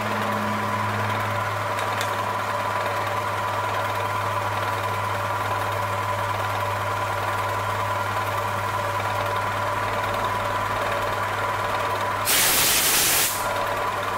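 Milling machine spindle running steadily, a low hum with a steady higher tone, as the end mill feeds down into a metal block to cut a hole. Near the end a loud hiss lasts about a second.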